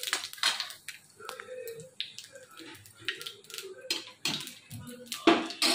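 Cumin seeds crackling and popping in hot oil in a steel kadhai, with a steel spatula scraping and clicking against the pan. Irregular sharp pops and clicks, the loudest near the end.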